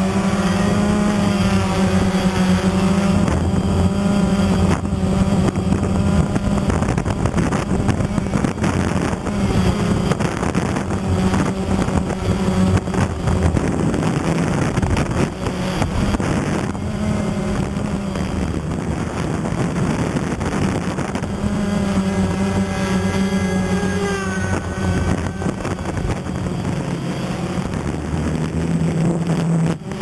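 DJI Phantom quadcopter's motors and propellers whirring in flight, a steady multi-toned hum whose pitch shifts as the motors speed up and slow down, rising about two-thirds of the way through.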